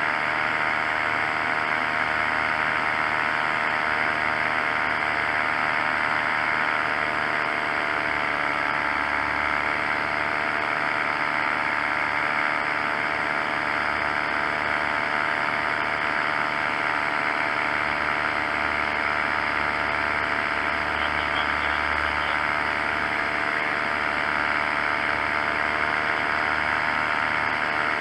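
Paramotor engine and propeller running at steady power in flight, a continuous buzz that holds its pitch.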